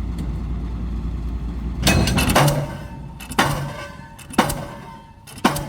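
Delmag D46-32 diesel pile hammer starting up: after a steady low machinery rumble, the hammer begins firing about two seconds in, striking the pile about once a second, each blow a sharp bang with a short ringing tail.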